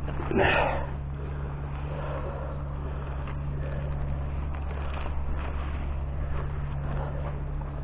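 A heavy machine's engine running steadily at an even pitch. About half a second in there is one short, louder rushing burst.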